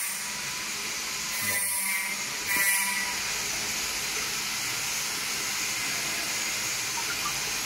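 Semi-automatic pneumatic tape-wrapping machine running with a steady hiss and faint whine, with two short, louder hisses of air about one and a half and two and a half seconds in.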